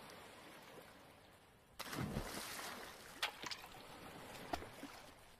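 Faint water sound effect for an animated intro logo: a sudden splash about two seconds in that fades away, followed by a few sharp drip-like ticks.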